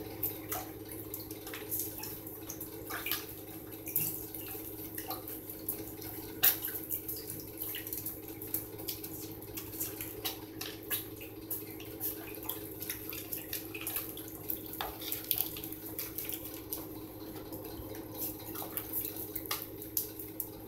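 Water dripping and splashing, with many small irregular clicks and taps over a steady low hum.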